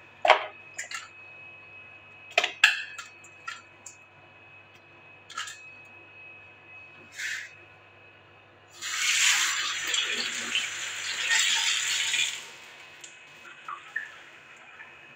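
Stainless-steel colander clinking and knocking against the sink and dishes as it is handled, then the kitchen tap running into the sink for about three and a half seconds from about nine seconds in.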